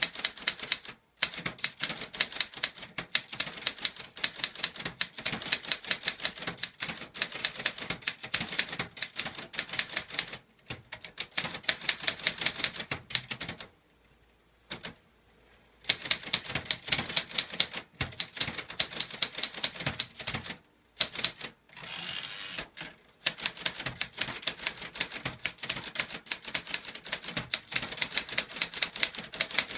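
Clover Top Star 10s Korean manual typewriter being typed on rapidly with no ink ribbon fitted, its typebars clacking several times a second. Typing stops briefly a few times, longest about halfway through.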